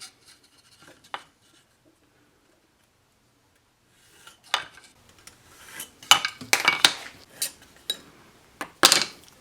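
Metal hand tools clinking and clattering on a workbench as they are handled and set down during marking out. A few light taps at first, a short quiet spell, then a run of sharp metallic clinks from about halfway, the loudest near the end.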